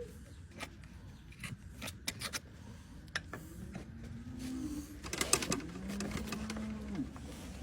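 A cow lowing twice, low drawn-out calls, over scattered clicks and scrapes from the hoof-trimming work.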